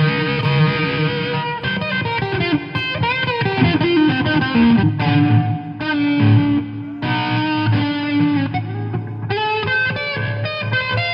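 Electric guitar playing a lead melody: single notes with string bends, and several notes held for a second or more around the middle.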